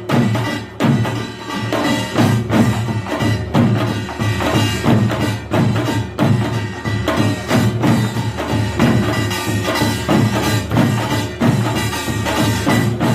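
Korean pungmul percussion ensemble playing: small gongs and drums struck together in a fast, dense, driving rhythm.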